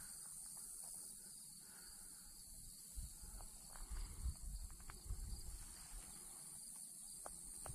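Faint, steady high-pitched insect chorus, with low wind rumble on the microphone coming and going a few seconds in and again near the end.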